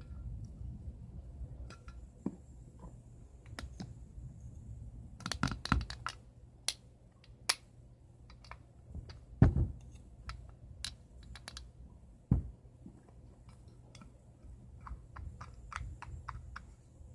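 Light clicks and taps of a small bowl and glass jar being handled and set in place on a table, with a louder knock about halfway through and another a few seconds later.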